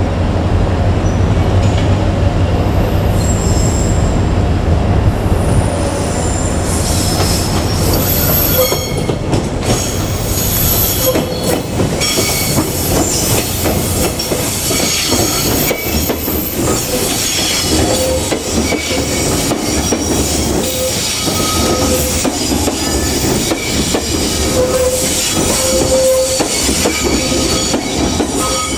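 JR Kyushu 817 series electric train running past over the rails, with a low rumble that eases after about five seconds and the clatter of wheels over rail joints. High, thin wheel squeal rings out through most of the pass.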